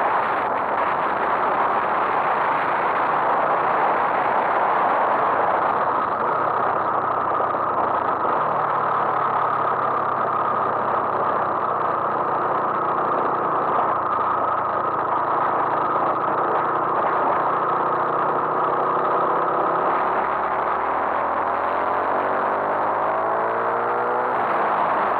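Honda MSX125's single-cylinder four-stroke engine running under way, under heavy wind and road noise. Its note holds steady, drops about twenty seconds in, then rises again near the end as it accelerates.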